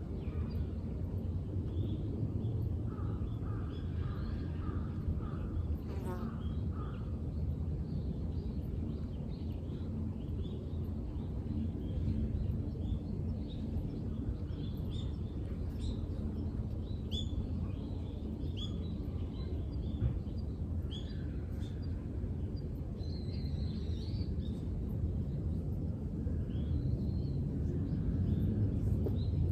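Outdoor ambience of birds chirping and calling, many short high chirps throughout, with a run of repeated lower calls about three to five seconds in, over a steady low rumble.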